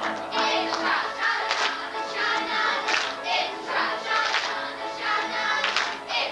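Music with a group of children singing along, over a sharp, steady beat.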